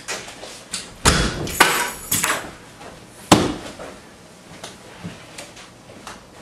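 A house's front door banging shut among several knocks and thuds; the sharpest bang comes about three seconds in.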